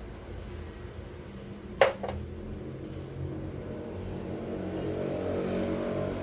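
Two quick sharp clinks of hard kitchenware, about a quarter-second apart, over a steady low hum, with a soft rushing noise building in the last couple of seconds.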